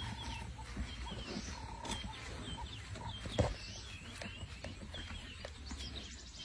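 Birds chirping in many short, repeated high notes over a steady low rumble, with a single knock about three and a half seconds in.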